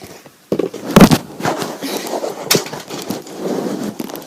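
A homemade foam squishy handled close to the microphone: a run of crackles and knocks, the loudest about a second in.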